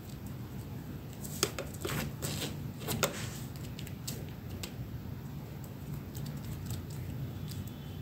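Bare toes moving and flexing close to the microphone, making small sharp clicks and rustles. A quick cluster of clicks comes between about one and a half and three seconds in, then only scattered faint ticks, over a steady low hum.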